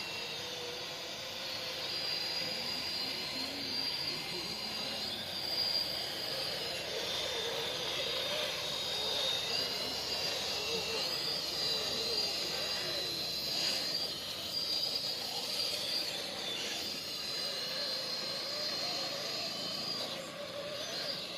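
RC scale crawler's electric motor and gearbox whining steadily as it drives, the lower pitch wavering up and down with the throttle. It cuts off suddenly at the end.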